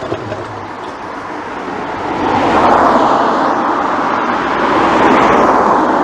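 Road traffic on a main road, with vehicles passing close by. The noise of tyres and engines swells from about two seconds in and stays loud to the end.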